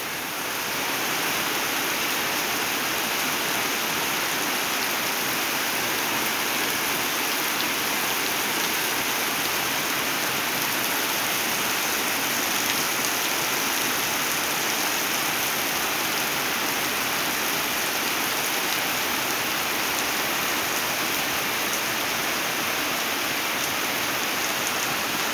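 Heavy rain pouring down steadily, an even hiss that neither rises nor falls.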